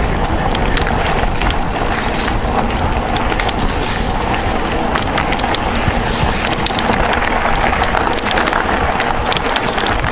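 Mountain bike rolling fast over a rough gravel trail: tyres crunching and the bike rattling with constant small clicks, over a steady rumble of wind on the microphone.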